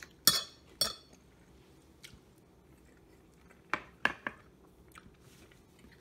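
Metal fork clinking against a dinner plate: two sharp clinks in the first second, then a few more around four seconds in as the fork is laid down on the plate's rim.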